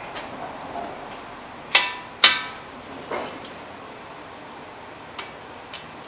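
Two sharp metallic clinks with a short ring, about half a second apart, then a few lighter ticks: a steel socket wrench knocking against the front brake caliper mounting bracket and its bolts as it is fitted to take them out.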